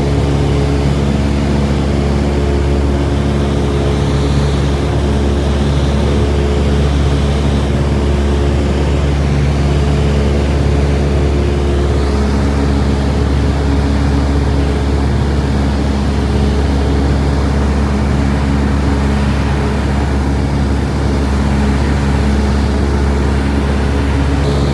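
Steady engine and propeller drone of a light high-wing propeller aircraft in cruise, heard inside the cabin: a constant low hum with a layer of rushing noise and no change in pitch.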